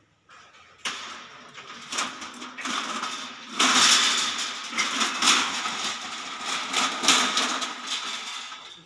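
Metal roll-up shutter rattling as its corrugated slats are handled and rolled during installation: a clattery scrape with many sharp clicks. It starts about a second in and gets louder about halfway through.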